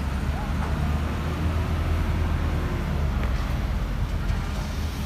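Road traffic: a vehicle engine running close by, a steady low rumble with a faint hum over it in the first couple of seconds.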